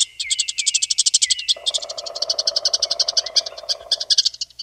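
Eastern chipmunk calling: a fast run of high, sharp chips, about ten a second, with short falling chirps over them in the first second or so. A lower steady sound joins about one and a half seconds in. Everything stops just before the end.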